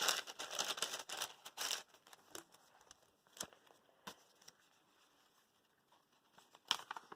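Paper pages of a handmade junk journal rustling and crinkling as they are turned and handled for about the first two seconds. After that it is mostly quiet, with a few separate short paper flicks and taps.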